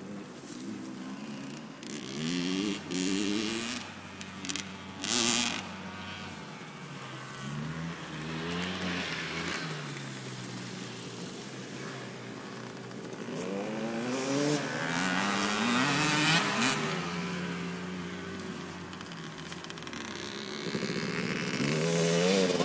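Motocross dirt bike engines revving hard in repeated surges, the pitch climbing and dropping again as riders accelerate through the gears around the track, loudest near the end as one passes close.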